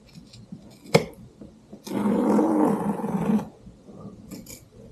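Scissors slid along the stitched seam of a vinyl jet ski seat cover, cutting the thread: a sharp click about a second in, then a ripping sound lasting about a second and a half.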